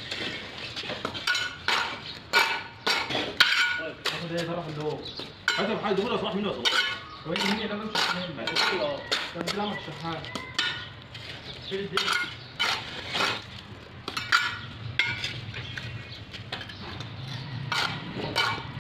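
Steel bricklaying trowel scraping and clinking against mortar and hollow red clay bricks, with many short, sharp taps and scrapes as bricks are laid and set.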